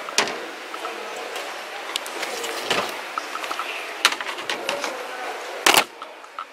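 Plastic mesh storage baskets knocking against a store shelf as they are handled: a few sharp knocks, the loudest near the end, over steady shop background noise.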